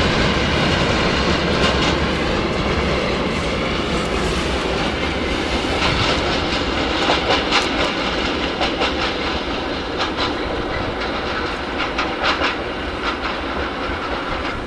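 Military train of wagons loaded with army vehicles rolling away along the track: a steady rumble of wheels on rails with scattered sharp clicks over the rail joints, slowly fading.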